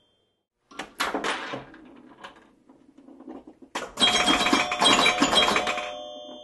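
Pinball machine in play: a few sharp mechanical clacks, then scattered ticks. About four seconds in comes a dense burst of rapid clicking with bells ringing, which fades away.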